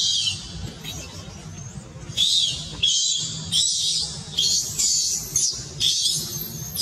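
Infant long-tailed macaque screaming in a string of short, shrill squeals, about eight cries that come irregularly every half-second to second.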